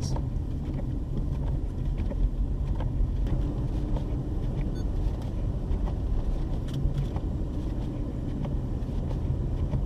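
Car running on a snowy highway, heard from inside the cabin: a steady low engine and road rumble with a few faint ticks.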